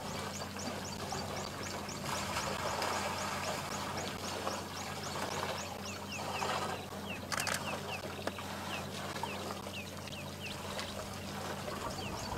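A bird calling in long runs of short, high, falling chirps, about four a second, over a low steady hum.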